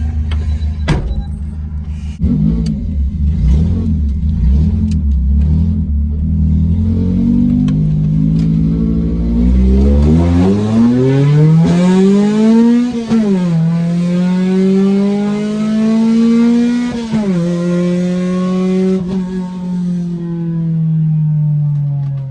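Honda H22 four-cylinder breathing through a 3-inch big-tube header collector, very loud. It runs low and steady with scattered clicks and rattles for several seconds, then accelerates hard: the pitch climbs for about five seconds and drops sharply twice at upshifts.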